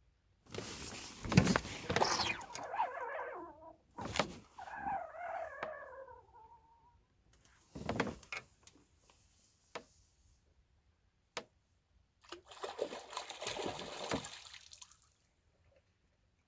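Water splashing and sloshing in several bursts of a few seconds each, with a few sharp clicks between them.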